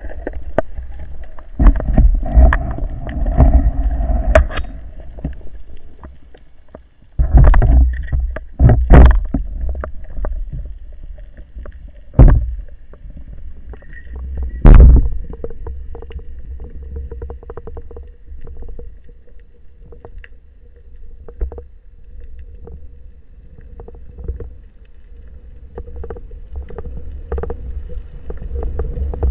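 Underwater sound picked up by a camera on a speargun while the diver swims: low rumbling surges of water flow and handling knocks against the housing, with scattered clicks throughout. A faint steady hum joins about halfway through and holds to the end.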